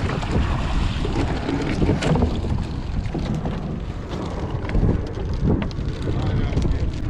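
Wind buffeting the microphone on an open boat at sea, a steady low rumble with scattered knocks and clatter on top.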